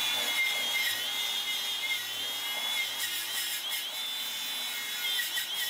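DeWalt cordless angle grinder with a paint-stripping disc running against a rusty steel wheel rim: a steady high whine over a grinding hiss, its pitch wavering slightly as the disc is worked over the metal.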